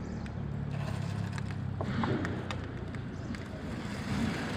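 A steady low motor hum with scattered light ticks.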